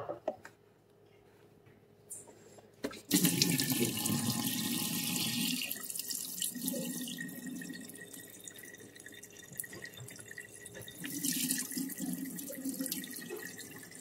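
Dirty mop water pouring from a mop bucket's drain spout into a stainless steel kitchen sink. After a short knock at the start and another just before three seconds in, the water starts and runs as a steady splashing stream.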